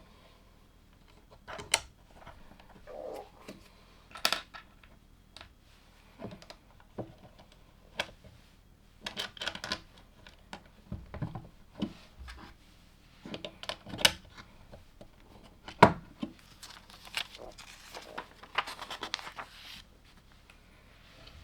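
LEGO plastic bricks and small parts being handled and snapped together: scattered sharp clicks and clatters. There are short spells of denser rattling and rustling about nine seconds in and again near the end.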